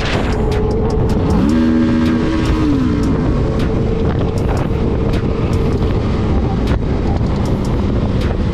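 Motorcycle running at highway speed, with heavy wind rush and buffeting on the bike-mounted microphone. About a second in, an engine tone climbs, holds for a moment and falls away again near the three-second mark.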